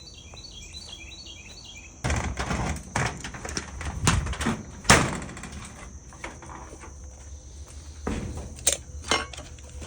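Steady high chirring of crickets, with a small bird chirping over the first two seconds. From about two seconds in, loud rustling and a series of knocks close to the microphone, the sharpest a little before the five-second mark.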